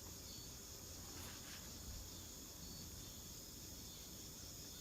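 Steady chorus of night insects, a continuous high-pitched trill, over a faint low rumble.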